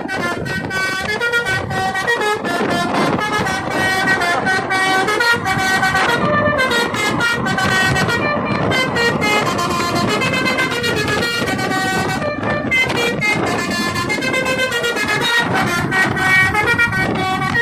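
Telolet Basuri multi-tone bus horn playing a melody, its notes stepping up and down one after another without pause.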